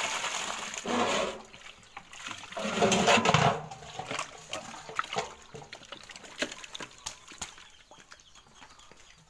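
Live fish thrashing and splashing in water in a metal basin as a hand works among them, in two loud bursts over the first few seconds, followed by scattered light taps and knocks that fade away.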